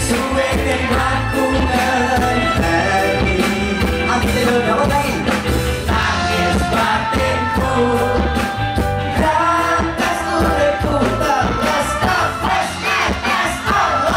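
Band music with singing: a pop-rock song with a steady beat and a sung melody.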